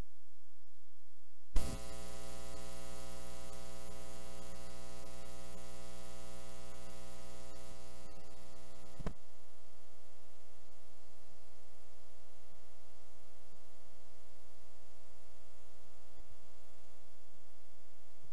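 Steady electrical mains hum and buzz in the sound system, with a sharp click about one and a half seconds in, after which the hum and hiss grow louder, and a smaller click about nine seconds in.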